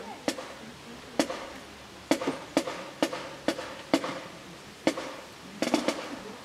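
A series of sharp clicks, about a dozen, mostly unevenly spaced, with a few close pairs and triplets.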